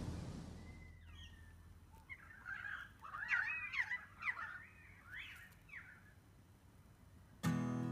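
A series of short bird calls with swooping, bending pitch, several overlapping, for a few seconds in the middle. Acoustic guitar music starts abruptly near the end.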